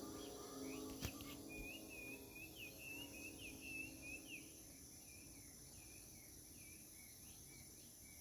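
Last notes of a public-address chime fading out as they echo from distant outdoor loudspeakers, dying away over the first few seconds, with a single sharp click about a second in. Faint twittering of a small bird runs underneath, quick rising and falling chirps.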